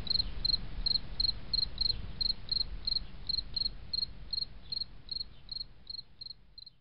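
A cricket chirping steadily, about three short chirps a second, over a low rumble, fading out toward the end.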